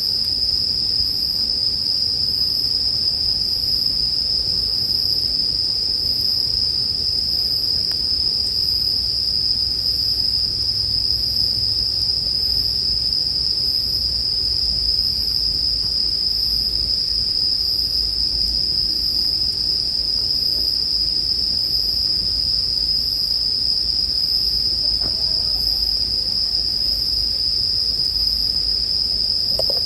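Bell crickets (suzumushi) singing in a continuous high trill, with a fainter, higher insect chirp repeating about once a second over a low, steady rumble.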